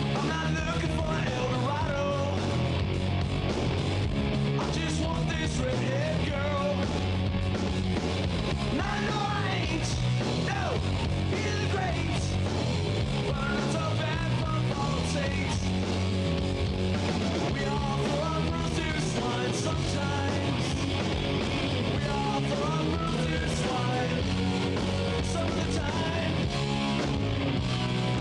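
Loud rock music with electric guitar and a sung or shouted vocal, in a fast punk-rock style.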